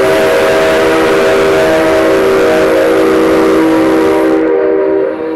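Whistle of the C57 135 steam locomotive blowing one long, loud blast: several tones sound together over a strong hiss of air. The hiss stops about four and a half seconds in, and the tone dies away just after.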